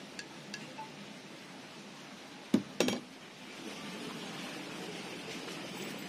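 A metal teaspoon stirring coffee in a drinking glass, with light clinks against the glass. About two and a half seconds in come two sharp clinks a third of a second apart that ring briefly, then a steady low background noise.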